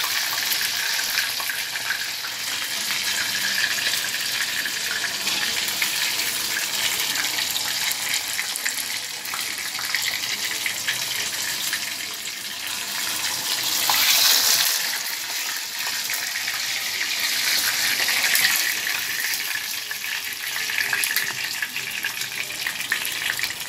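Pieces of koduva (Asian seabass) deep-frying in hot oil, a steady crackling sizzle of fish that is fried through on both sides and being lifted out one by one. The sizzle swells louder about halfway through and again a few seconds later.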